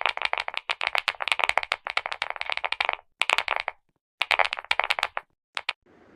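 Rapid typing on a clicky mechanical keyboard: fast runs of sharp key clicks, a short pause about four seconds in, another run, then two last clicks near the end.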